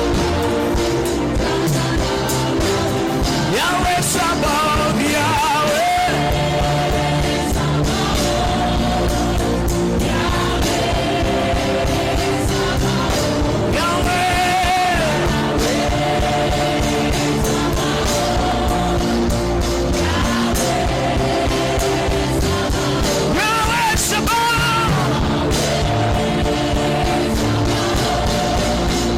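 Worship music with a steady sustained band accompaniment, guitar among the instruments, and a voice singing or crying out in long drawn lines over it.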